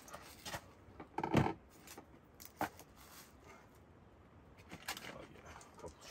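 Bacon being cut and handled on a camp table: scattered light clicks and knocks, the loudest a thump about a second in.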